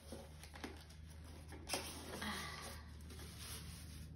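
Faint handling noise of a bathroom scale being lifted out of its cardboard box in foam corner pieces: light rustles and small knocks, with one sharper click about a second and a half in.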